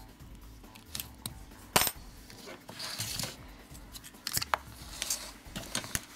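Small metallic clicks and clinks of an 8 mm ring spanner on a nut as a cable's ring terminal is bolted onto a battery spot welder's board. The clicks are scattered and irregular, with one sharp clink a little under two seconds in and a busier run of clicks near the end.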